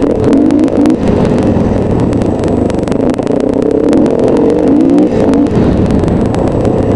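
Dirt bike engine running under load, revs rising and falling as it is ridden along a rough forest trail, with frequent rattles and knocks from the bumps.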